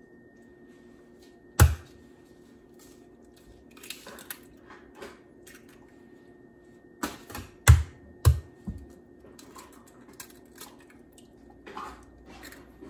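Eggs being knocked against the rim of a stainless steel stand-mixer bowl to crack them: several sharp knocks, one about a second and a half in and a quick cluster of three around seven to eight seconds in, with softer taps and handling between.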